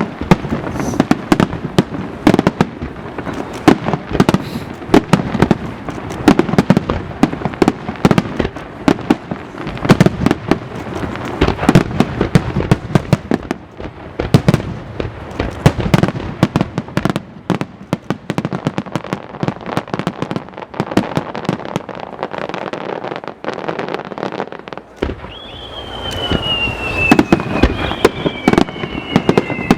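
Fireworks display: a dense, continuous barrage of shell bursts and sharp reports. Near the end two high whistles slide slowly down in pitch over the bangs.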